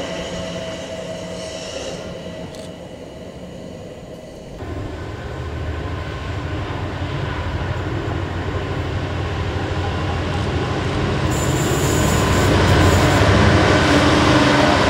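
A Class 378 electric train's motors whining as it draws away and fades. Then a Class 66 diesel locomotive's two-stroke V12 engine and wheels approach, getting steadily louder as it passes at the head of a freight train, with a brief high wheel squeal about twelve seconds in.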